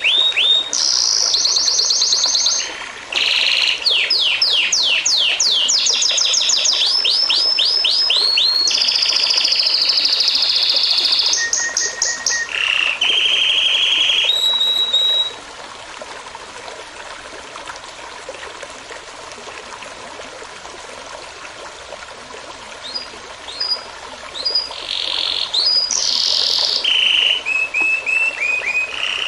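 Songbirds singing: fast trills and rows of quickly repeated, downward-sweeping whistled notes, loud for about the first fifteen seconds. Then the song drops away to softer, sparser phrases over a faint steady wash of running stream water, and grows louder again near the end.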